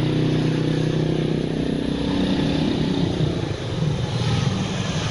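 A motorbike engine running close by. Its steady hum fades out about three seconds in, leaving rougher street traffic noise.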